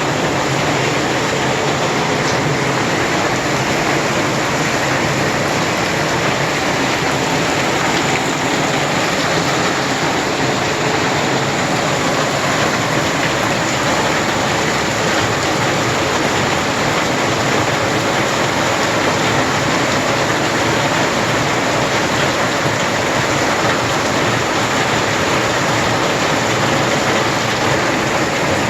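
Tropical rain falling in a steady downpour: a loud, even hiss that does not change.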